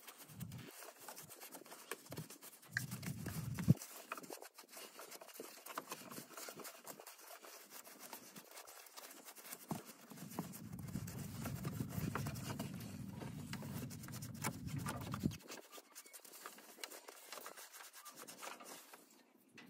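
Cloth towel rubbing and wiping over engine-bay parts and hoses, a continuous scratchy scrubbing. It grows louder and deeper for a few seconds about three seconds in, and again from about ten to fifteen seconds in.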